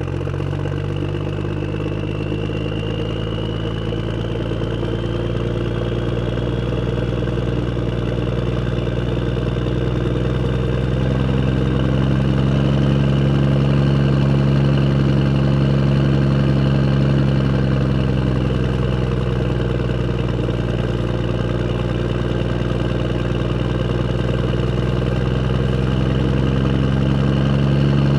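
A vehicle engine idling steadily, growing a little louder toward the end.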